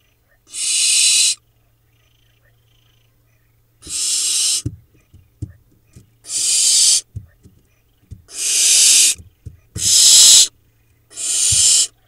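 Barn owl nestlings giving their rasping, hissing begging calls (the 'snore' of young barn owls): six loud hisses, each just under a second long, a second or two apart. A few short low knocks fall between the later calls.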